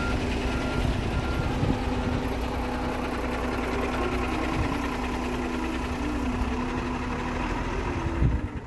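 Diesel engine of a concrete mixer truck running steadily as the truck moves slowly, with a constant low hum and a steady tone over it.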